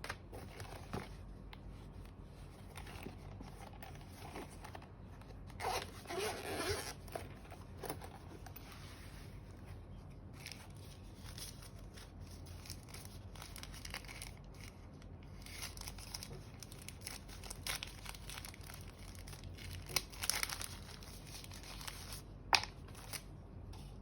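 Packaging being handled and torn open during an unboxing: rustling, crinkling and tearing in bursts, loudest about six seconds in and again around twenty seconds in, with a sharp click a couple of seconds later, over a low steady hum.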